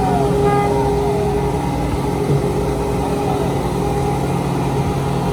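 Engine of road-construction machinery running steadily at an even pitch.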